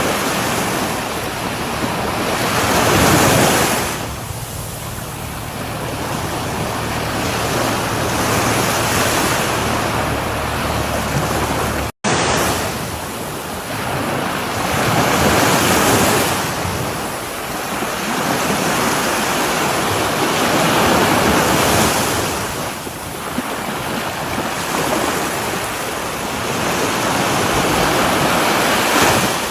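Sea surf on a shore, swells breaking and washing up and falling back every few seconds. The sound cuts out for a split second near the middle.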